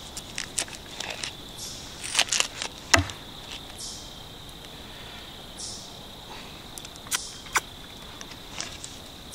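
Crickets trilling steadily, with knife and sausage clicks and taps on a wooden cutting board as a sausage is sliced. A sharp knock about three seconds in, likely the pocket knife set down on the board, is the loudest sound; two more clicks come near the end.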